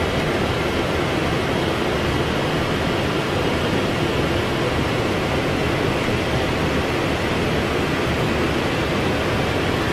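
Steady, even rushing noise inside the flight deck of a Boeing 777 in flight, the sound of air and machinery heard from the cockpit, with no distinct tones or knocks.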